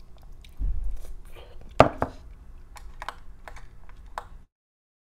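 Metal spoon clicking and scraping against a ceramic bowl while eating a sundae: a string of sharp clinks, the loudest a little under two seconds in, with a low thump just before. The sound cuts off suddenly near the end.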